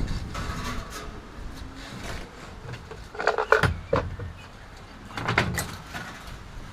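Handling noise from coiled heating-element wire and furnace parts being worked: scattered clinks, knocks and scrapes, with the loudest bunches about three and a half seconds in and again about five and a half seconds in.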